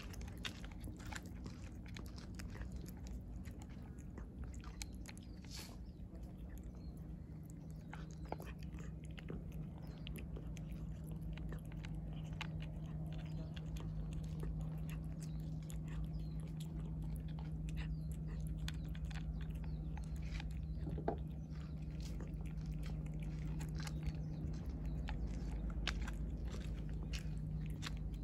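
A cat crunching dry kibble and chewing wet cat food close to the microphone: a fast, uneven run of small crisp crunches. A steady low hum runs underneath, growing louder after the first third.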